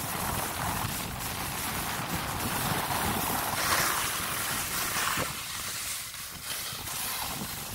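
Skis sliding and scraping over groomed snow, with wind rushing over the microphone. The scraping swells a few times as the skis turn and is loudest about four seconds in.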